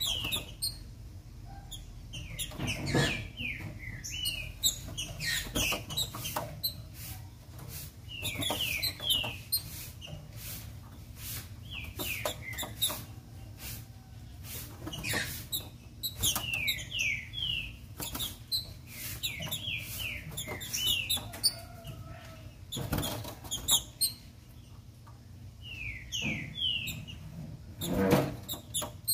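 Female green-winged saltator (trinca-ferro) calling: short runs of two to four quick, falling whistled notes, repeated every couple of seconds. Sharp knocks come in between as the bird moves about its wooden cage.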